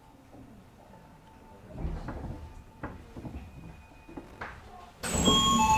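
Cabin of a train standing at a station with its motors silent: a few scattered knocks and footsteps from people moving about. About five seconds in, a much louder sound starts with several clear ringing chime-like tones.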